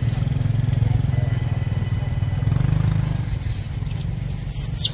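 A baby macaque gives a brief shrill squeal about four seconds in, over a steady low rumble.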